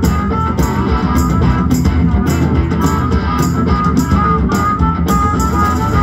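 Live rock band playing loudly: guitar lines over bass and drums with a steady beat.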